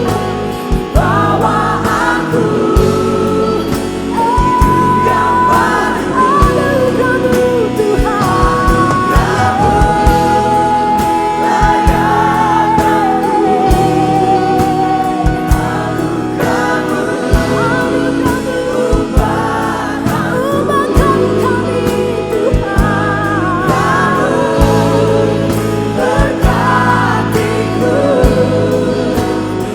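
Indonesian Christian worship song with sung vocals and choir backing over a full band with a steady beat.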